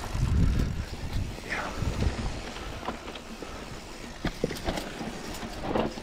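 Mountain bike rolling down a dry, rocky dirt trail: tyres rumbling and crunching over dirt and stones, with sharp knocks and rattles from the bike as it hits bumps, heaviest in the first second.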